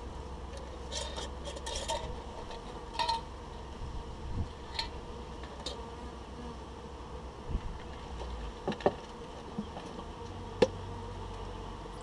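Honeybees buzzing around a hive in a steady hum, with scattered sharp clinks and knocks as a glass feeder jar and its metal lid are handled.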